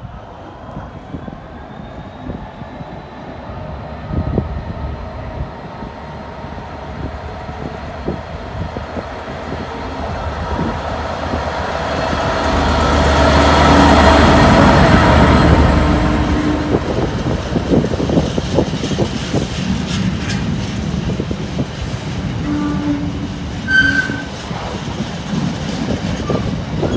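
A Freightliner Class 66 diesel locomotive, its two-stroke V12 engine growing louder as it approaches and loudest as it passes at about the middle. It is followed by a long train of empty container flat wagons rattling and clicking over the rail joints.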